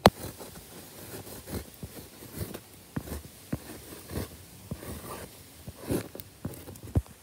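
Uni Posca paint marker's tip scraping across a rough painted wall in short, irregular strokes as a tag is written. A sharp click comes right at the start and another near the end.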